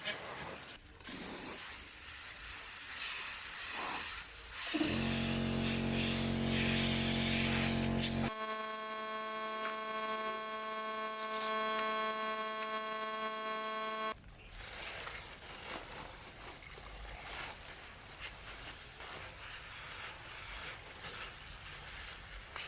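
Paint spraying: an even hiss, interrupted by two stretches of steady machine hum in different pitches that start and stop abruptly, then a fainter hiss.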